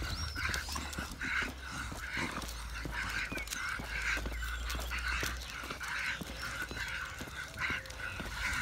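Staffordshire bull terriers panting hard as they pull on their leads, a quick rhythm of about two breaths a second, with low wind rumble on the microphone.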